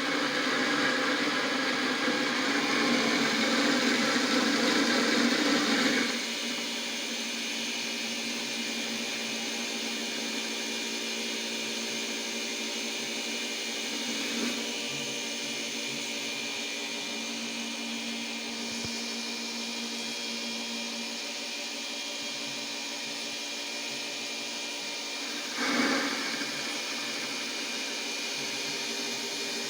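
Metal lathe converted to CNC with stepper-motor feeds, running a trial cutting pass. The machine noise is louder and rougher for about the first six seconds, then settles to a steadier hum with several held tones. Two short louder swells come near the middle and near the end.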